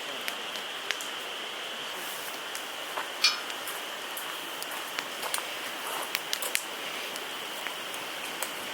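Scattered small clicks and clinks, one louder about three seconds in, over a steady high-pitched hiss.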